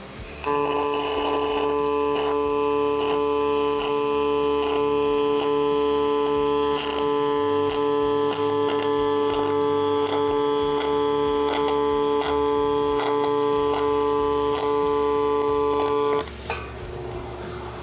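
MIG welding arc on steel, fed by a Miller gun, burning steadily for about fifteen seconds: a steady buzzing hum with constant crackling. It starts half a second in and cuts off sharply when the bead is finished.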